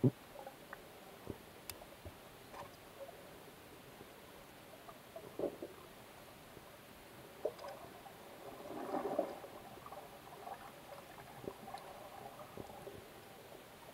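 Underwater ambience picked up by a camera below the surface: a faint steady hiss with scattered short clicks and pops, and a brief louder crackling burst about nine seconds in.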